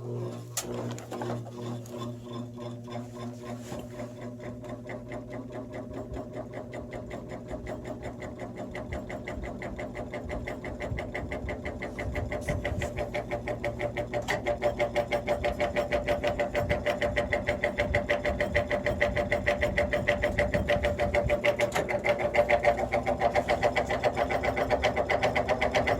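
A 1950s General Electric box fan running on low: a motor hum with a fast, even pulsing, growing louder about halfway through. It sounds really bad: the blade is badly out of balance, its hub off-centre on the spindle, so the fan shakes hard, and the motor needs oil.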